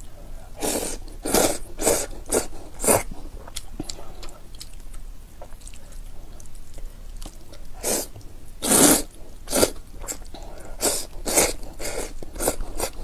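Close-miked slurping and chewing of soup noodles. There is a quick run of loud slurps in the first three seconds, quieter chewing after it, and more slurps from about eight seconds on.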